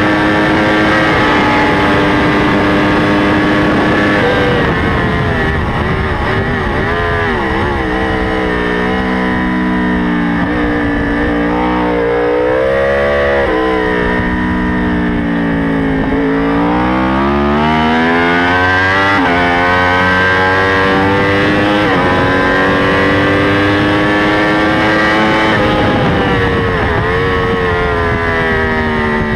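Onboard sound of a race sport bike's engine with wind rush. It runs steady at high revs at top speed, then the throttle closes and the revs drop in steps as it is braked and downshifted into a slow corner. It then accelerates hard out of the corner, the revs climbing and breaking at three upshifts in the last ten seconds.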